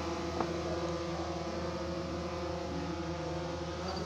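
Steady machine hum made of several unchanging tones, with a faint click about half a second in.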